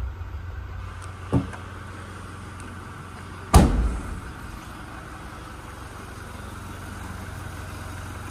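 A Toyota Fortuner's tailgate slammed shut about three and a half seconds in: one loud, heavy thud that rings on briefly. A lighter knock comes a little over a second in. A steady low hum runs underneath throughout.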